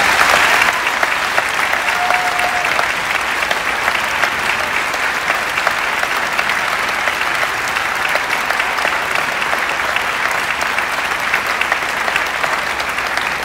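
Large audience applauding, dense and steady clapping.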